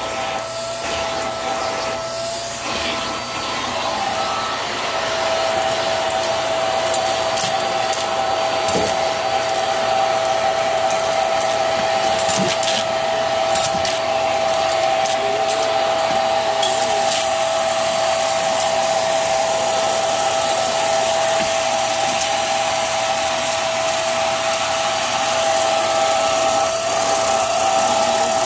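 Hart upright vacuum cleaner running on its hose wand: a steady high whine over rushing air, with scattered ticks as small debris is sucked up the hose. The whine grows louder and steadier about five seconds in.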